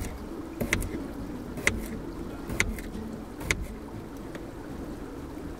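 Kitchen knife chopping potatoes on a wooden chopping board: four sharp knocks about a second apart, over a steady low rumble.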